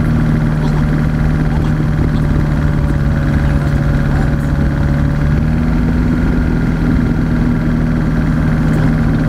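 Single-engine light aircraft's piston engine running steadily at low taxi power, its propeller turning, heard from inside the cockpit.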